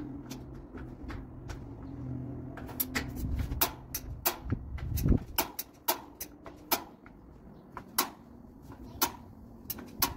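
A run of irregular sharp clicks and knocks, as of hard parts being handled and set down, with a low thud about five seconds in.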